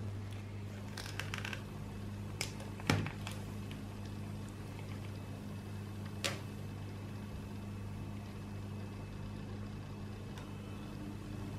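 Black vinyl masking film being peeled off painted sign lettering, giving a few sharp crackles and snaps, the loudest about three seconds in, over a steady low hum.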